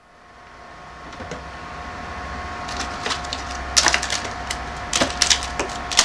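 Small fridge door opened by its handle, then items inside handled: a run of sharp clicks and crackles that grows from about three seconds in, over a steady faint hum.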